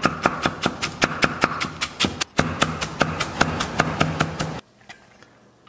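Chinese cleaver chopping on a thick round wooden chopping block, mincing ginger: quick, even knocks about five or six a second, with a brief pause about two seconds in, stopping about three-quarters of the way through.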